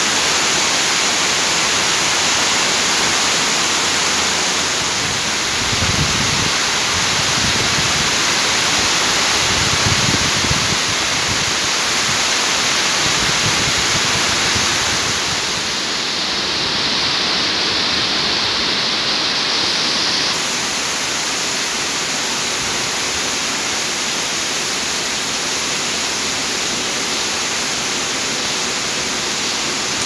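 Heavy rain falling, a loud steady hiss, with a few brief low rumbles in the first half.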